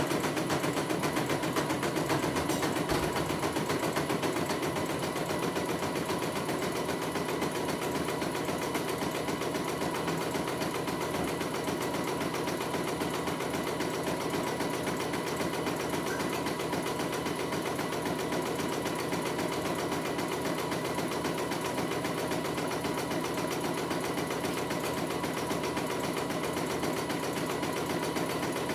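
Computerized embroidery machine stitching out a design: the needle runs at a steady, rapid rate while the embroidery arm shifts the hoop.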